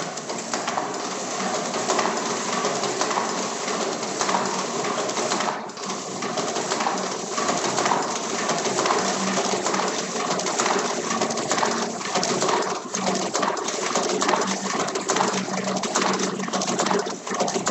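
Pelikan Rotafix 88 hand-cranked stencil duplicator running, its drum and rollers turning with a dense, continuous mechanical rattle of closely packed clicks.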